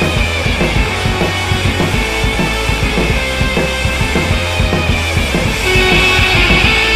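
Rock music with a driving drum beat and a steady bass line; it gets louder, with the guitars coming up, a little before the end.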